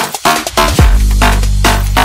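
Electronic hip-hop backing track with a heavy bass and steady beat; the bass drops out for a moment near the start and comes back with a deep kick drum.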